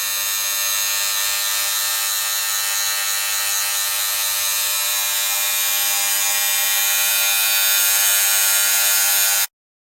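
Electric hair clipper running steadily, a high buzz with many overtones, which stops abruptly near the end.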